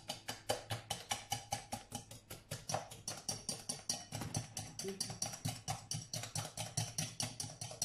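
Wire hand whisk clicking rapidly and evenly against a glass bowl, about six strokes a second, beating eggs and sugar together until they combine.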